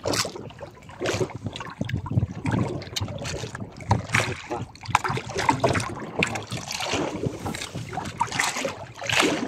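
Water splashing and slapping against the side of a small boat while a fishing handline is hauled in by hand, with irregular knocks and wind on the microphone.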